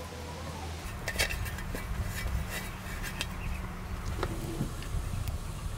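Cookware being handled: a pot and its lid give a few scattered light clinks and knocks over a steady low rumble.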